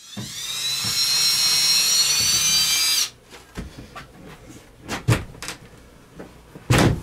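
Power drill spinning up with a rising whine, running steadily for about three seconds and then stopping abruptly. It is followed by a few scattered knocks, the loudest near the end.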